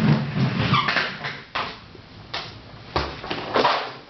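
Plastic twisty puzzles being handled: a rustle of handling, then several separate clicks and knocks as the pieces are picked up, turned and set down.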